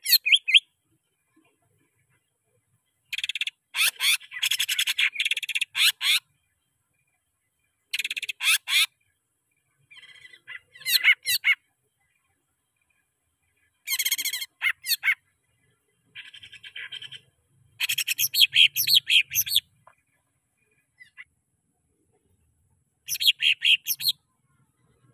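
Male green leafbird (cucak ijo) singing in loud bursts of rapid, varied, high chattering notes, about six phrases of one to three seconds each, separated by pauses.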